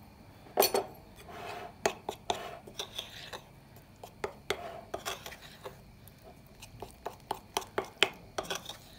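Metal spoon stirring flour into yogurt in a porcelain bowl: irregular clinks and scrapes of the spoon against the bowl.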